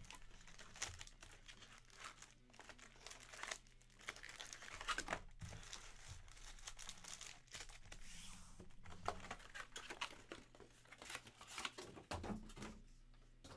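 Foil wrappers of Topps Chrome hobby packs crinkling and rustling in quick, irregular handling as the packs are pulled from the box and shuffled in the hands.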